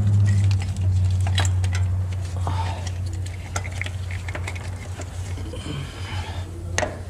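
Light clicks and metallic taps from hand work on parts under a truck on a lift, over a steady low hum that fades after the first couple of seconds.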